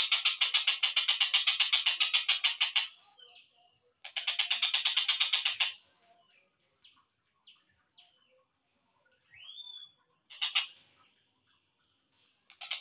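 Slowed-down recording of a tengkek buto kingfisher's song: a loud, fast rattling trill of about ten pulses a second for nearly three seconds, a second trill for about a second and a half, then a few short chips, one rising whistle near the middle, a short burst, and the trill starting again at the end.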